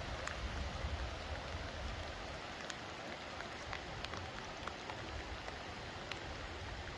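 Steady rain with scattered drops ticking sharply close by, over a low, uneven rumble.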